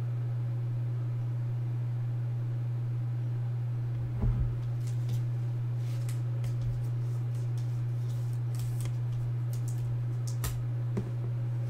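A steady low hum, with a few faint, scattered clicks and short rustles as a trading card and a clear plastic card holder are handled.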